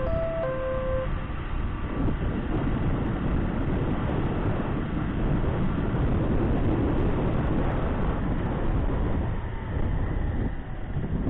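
Steady wind and road noise from a motorcycle riding along a street, with no distinct engine note standing out. A short tune of electronic beeping tones, like a vendor truck's jingle, ends about a second in.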